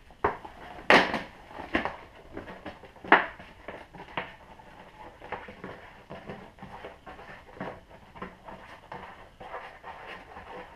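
Knocking and clatter from handling a fat bike wheel and tire: a few sharp knocks in the first few seconds, the loudest about one second and three seconds in, then lighter clicks and rubbing.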